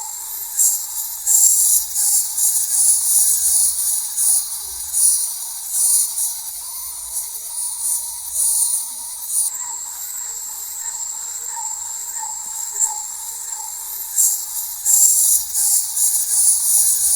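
Wind-up walking toy's clockwork mechanism running: a steady high whirring hiss with a thin whine, swelling irregularly as it goes.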